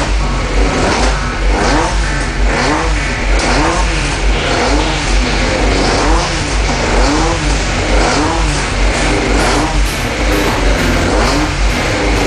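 Race pickup truck engine revved in short throttle blips, each rising and falling in pitch, about one a second, over the steady sound of the engine running.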